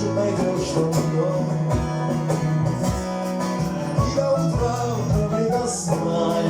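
Live band playing an instrumental passage of a folk-rock song: plucked guitar melody over a bass line with a steady beat.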